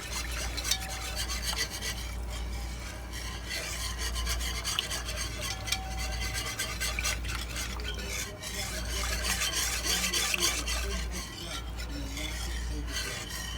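A whisk stirring roux and water in a pot, scraping against the pot with quick, continuous strokes as the roux is worked in to dissolve its lumps.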